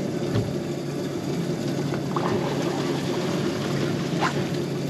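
Boat engine running steadily over the rush and splash of water, with a few faint clicks.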